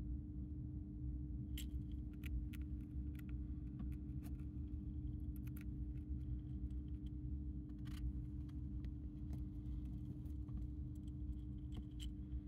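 A dwarf hamster nibbling dry food, giving a scatter of small, irregular crisp crunches over a steady low hum.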